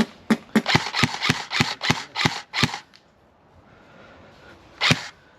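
Airsoft gun shots: a rapid string of about a dozen sharp pops, roughly four or five a second, for nearly three seconds, then a pause and one more single shot near the end.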